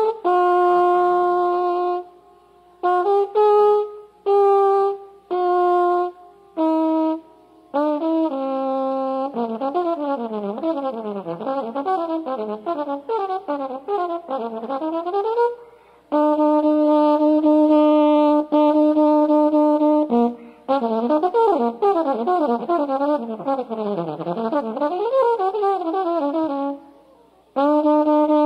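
Jazz trombone solo with nothing else heard in the pauses: short phrases of separate notes, then fast runs sweeping up and down. A few long held notes come in the middle, and more rapid runs near the end.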